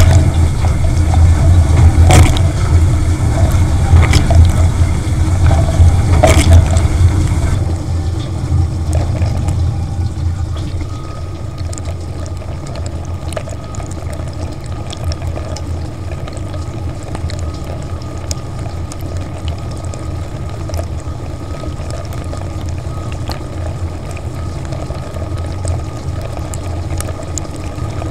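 Dishwasher running, heard from inside the tub: a steady pump hum with water spraying and thumps about every two seconds. About eight seconds in it drops abruptly to a quieter steady hum and water noise, with a faint steady whine.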